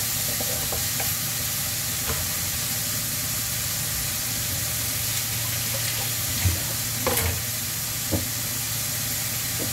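Chicken strips, julienned carrot and onion sizzling steadily in a nonstick wok over a gas flame. A wooden spatula stirs and taps the pan with a few light knocks in the first two seconds, and there are a few more light knocks in the second half.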